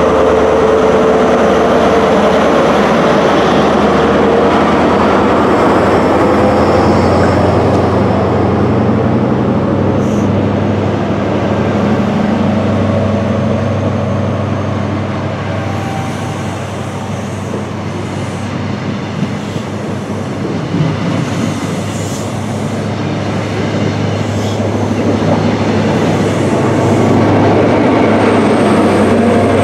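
A CrossCountry High Speed Train (Class 43 diesel power cars) pulling out of the platform. The leading power car's diesel engine runs under load as it passes, then the coaches roll by with the engine sound easing off through the middle. The sound builds again near the end as the rear power car comes by.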